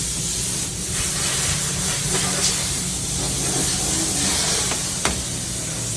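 Steady hiss with a low hum underneath, and a single sharp click about five seconds in.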